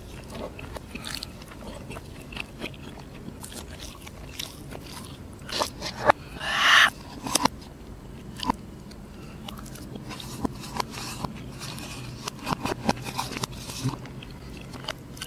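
Close-miked eating sounds: chewing and mouth smacking, with many short clicks and a short noisy burst about six and a half seconds in. A plastic spoon scrapes in a paper tub of mashed potato.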